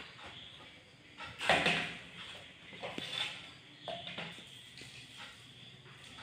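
A few short clinks and knocks of glass jars, a drinking glass and a spoon against a steel plate and tabletop, the loudest about a second and a half in, with a sharp click about three seconds in.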